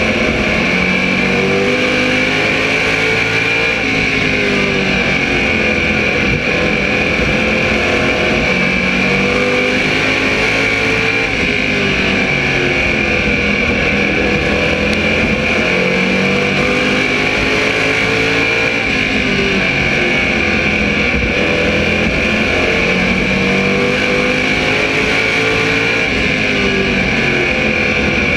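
SK Modified race car's small-block V8 engine running hard on track, heard from inside the car. The revs fall off and climb back up repeatedly, every several seconds, as it lifts for the corners and accelerates out of them.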